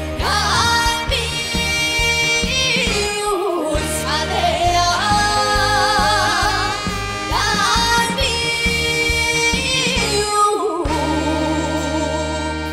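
Live trot song: female voices singing long held notes with heavy, wavering vibrato over band accompaniment with a steady bass.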